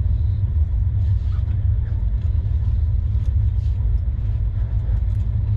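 Steady low rumble of a moving passenger train, the Mahananda Express, running along the track, heard from inside the coach.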